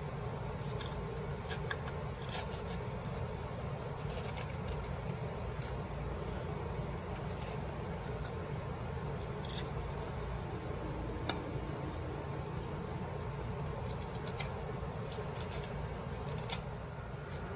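An ESEE 4 knife shaving a scrap-pine spoon bowl: irregular short scraping cuts and small ticks as curls of wood come off, over a steady low background noise.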